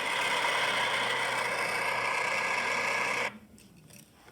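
Sound effect of a bus engine running steadily as the bus starts up, cut off abruptly about three seconds in.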